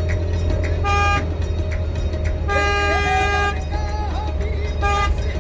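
A bus horn honks three times (a short blast, a longer blast of about a second, then another short blast) over the steady drone of the bus engine, heard from inside the cab, with music playing.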